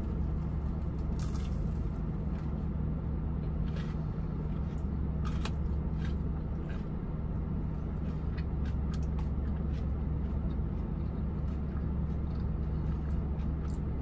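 Mouth sounds of chewing a potato-crusted mozzarella corn dog, scattered soft wet clicks and crunches, over the steady low hum of the car running.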